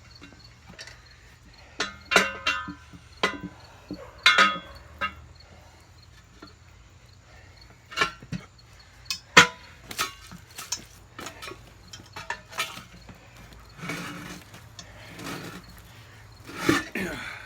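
Irregular sharp clanks and knocks, with some scraping, from a Willys Jeep tire and steel rim being worked on a manual tire changer with tire irons.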